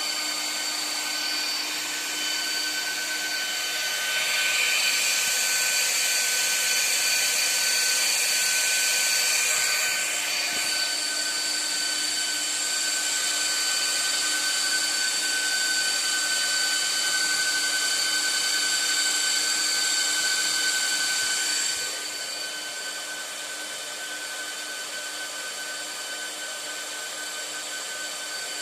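Cooling fans of an Antminer ASIC miner running at high speed: a steady whir with several high, fixed whining tones. It grows louder a few seconds in and drops somewhat near the end.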